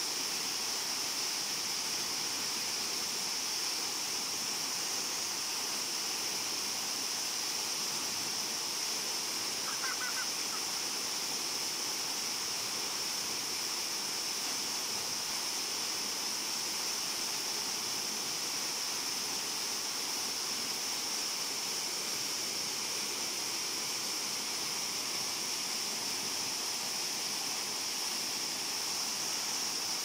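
Steady rush of a small waterfall pouring through a hole in a rock overhang into a pool, with a steady high hiss riding on top.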